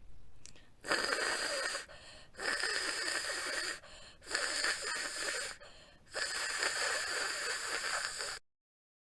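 A person's voice making a long, voiceless hissing consonant sound four times in a row, each held for about a second, with short pauses between: a letter's sound (phoneme) being demonstrated.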